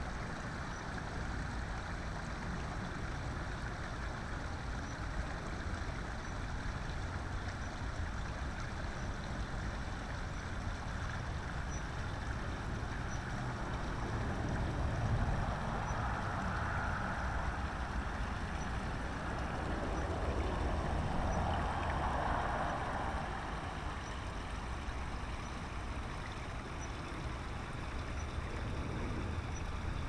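Small garden-pond waterfall splashing steadily over stacked stones into the pond, with a low rumble underneath; it grows a little louder around the middle.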